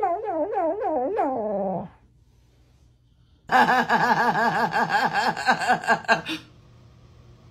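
A dog whining and howling in a fast run of wavering, rising-and-falling cries, as if talking. It stops for about a second and a half, then gives a second, louder run of the same cries for about three seconds before falling quiet.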